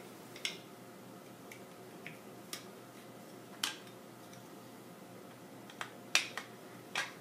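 Plarail plastic toy track parts clicking as a yellow support bracket is snapped onto a blue curved track piece and the piece is set down on a wooden floor: nine or so scattered sharp plastic clicks and knocks, the loudest about six seconds in.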